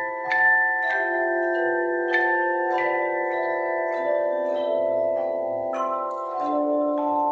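Handbell choir ringing a tune in chords: several bells struck together about once a second, each chord left to ring on under the next.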